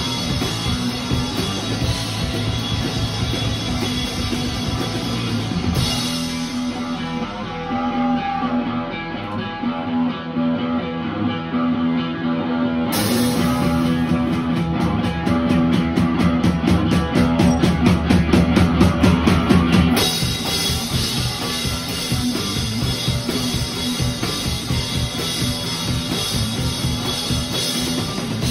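Live rock band playing an instrumental passage on electric guitar, bass guitar and drum kit. About six seconds in, the drums drop out and guitar and bass carry on. Around thirteen seconds a fast, even drum build starts and grows louder, and the full band crashes back in near twenty seconds.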